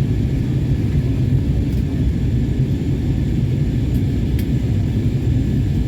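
Steady low rumble of an airliner heard from inside the passenger cabin: engine and airflow noise, with a few faint clicks.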